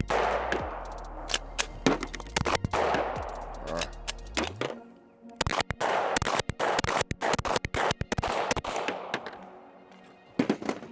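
Gen 3 Glock 17 9mm pistol firing in quick strings of shots, each with a short echo, the fastest and densest string about halfway through. Background music with a low bass line plays under the first half.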